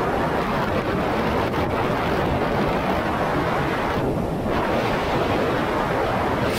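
Steady rush of wind buffeting the microphone, mixed with hull and water noise from a jet ski running across calm water; no distinct engine note stands out. The hiss thins briefly about four seconds in.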